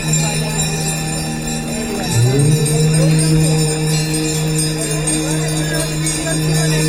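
Music with long held notes, one brief pitch glide about two seconds in, and jingling bells or tambourine.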